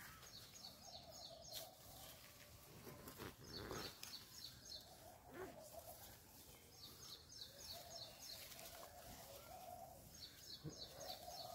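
Faint birdsong: a small bird repeats a short, rapid high trill of quick notes about four times, every three seconds or so, with a lower wavering call in between.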